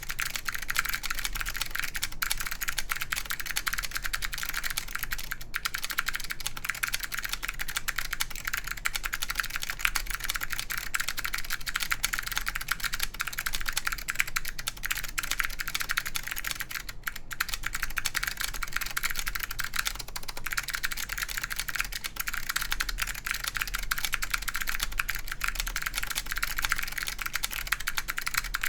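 Continuous fast typing on a mechanical keyboard with clicky SKCM Blue Alps switches in an aluminum plate, under Apple Extended Keyboard II keycaps: a dense, sharp, high clatter of key clicks.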